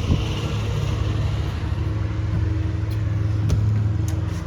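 Steady low mechanical hum like a running motor, with a few faint ticks a little after the middle.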